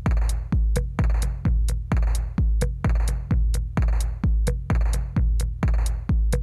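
Electronic background music with a deep, booming kick drum about twice a second and sharp hi-hat ticks between the beats.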